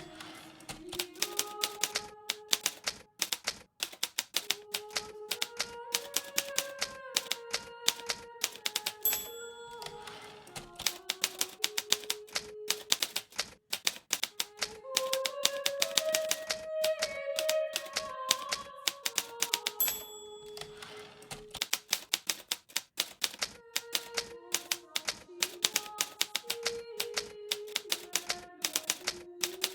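Hermes Baby manual portable typewriter typing at a fast, uneven pace, its keys and typebars clacking several times a second with a few short pauses. Soft melodic music with slow held notes plays underneath.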